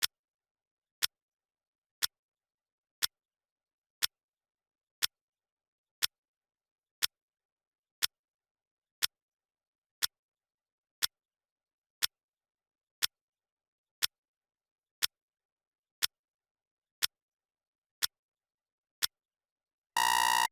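Clock-tick sound effect of a countdown timer, one sharp tick every second. Near the end a rapid electronic alarm beeping starts, the loudest sound, signalling that the countdown has finished.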